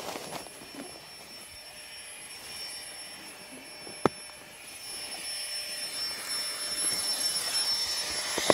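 Flextail Gear mini battery air pump running with a steady high whine as it blows air into a Trekology inflatable sleeping pad, growing louder over the last few seconds. A sharp click about four seconds in.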